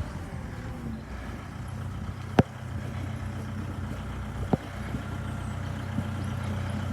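An engine idling steadily, with two sharp clicks about two and four and a half seconds in.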